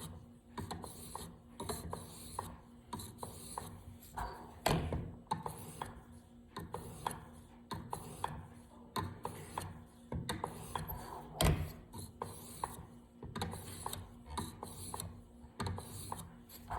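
Venev diamond stone on a TSPROF guided knife sharpener rubbing along a steel knife edge in many short, repeated strokes, with light clicks from the guide arm. The strokes are evening out the scratch lines on the edge.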